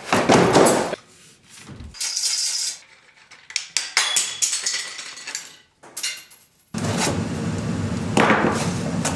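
Sharp clicks, knocks and glassy clinks of video lamps and light-stand parts being handled and fitted together. About seven seconds in, a steady low hum starts suddenly.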